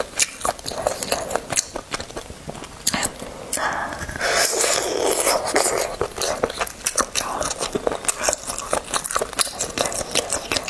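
Close-miked eating of sauce-coated rabbit leg: wet chewing and biting with many sharp mouth clicks and smacks, and a denser stretch about four seconds in.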